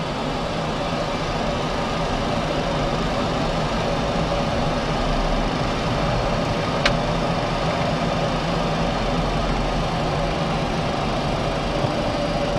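Flight-deck noise of a Boeing 737-400 taxiing onto the runway, with its CFM56 engines at idle: a steady hum and hiss with a faint steady tone. A single sharp click comes about seven seconds in.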